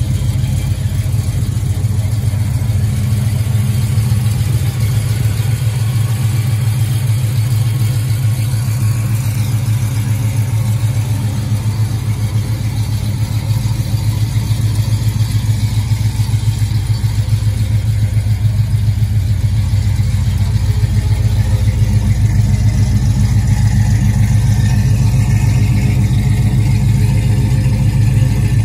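The 1966 Plymouth Satellite's factory 383 big-block V8 idling steadily through a Flowmaster exhaust, with an even low burble that grows a little louder about two-thirds of the way through.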